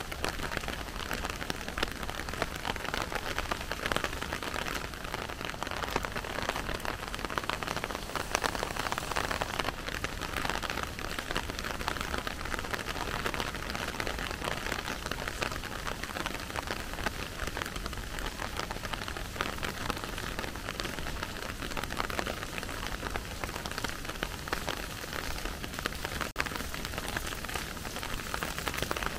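Steady rain falling, a dense patter of drops.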